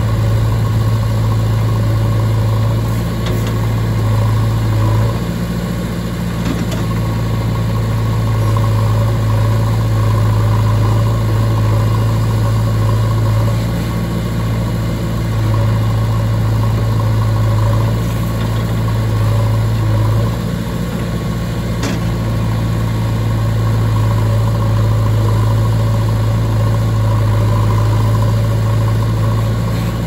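JCB backhoe loader's diesel engine idling with a steady low hum that dips briefly a few times.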